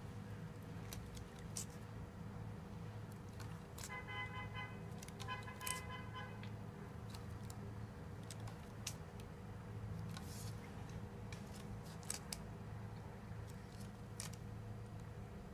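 Silicone grip tape being stretched and wound by hand around a hockey stick handle: scattered light crackles and clicks over a steady low hum. About four seconds in, two short horn-like tones sound, the second one longer.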